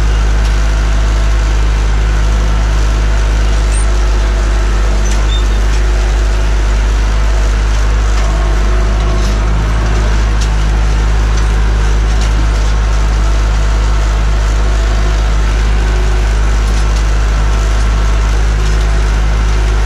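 Massey Ferguson 590 tractor's four-cylinder Perkins diesel running steadily while driving, heard from inside the cab, with a few light rattles.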